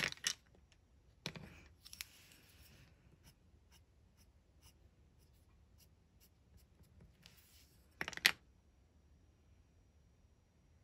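Colored pencil scratching across textured paper in a few short bursts of light shading, with faint ticks between them and one sharp knock about eight seconds in.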